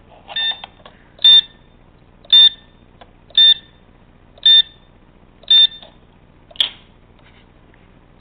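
Short, high electronic beeps, six of them about a second apart, each a steady tone. A fainter sound comes just before the first beep, and a sharp click follows the last one.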